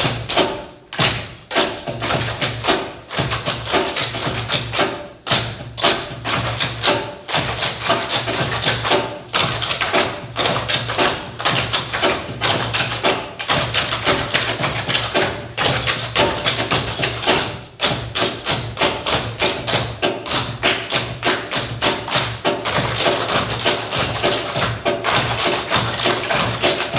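Clogging shoes with metal taps striking the stage in fast rhythmic unison, many dancers stepping together in dense runs of sharp clicks, with a cajon's thumps underneath.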